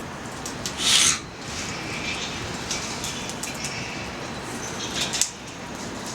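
Wood fire of slightly damp branches and offcuts burning in a Picogrill 398 fire stand, crackling and popping with a steady background hiss. The loudest sound is a short hissing burst about a second in, with a second, smaller burst near the end.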